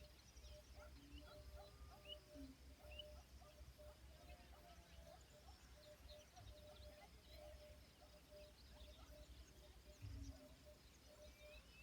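Faint rural outdoor ambience: small birds chirping here and there over a low rumble, with a faint pulsing tone and a brief low thump about ten seconds in.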